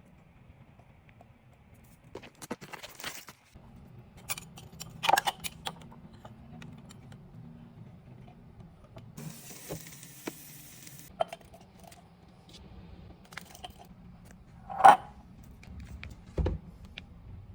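Kitchen utensils and dishes clinking and clattering during food preparation, in scattered bursts with the loudest clink about fifteen seconds in. A short hiss comes around the ninth to tenth second and a dull thud near the end.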